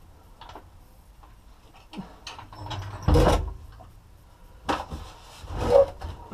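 Clunks and scrapes of a fuel tank and floor jack being handled and shifted, coming as three louder irregular bursts in the second half, the last the loudest.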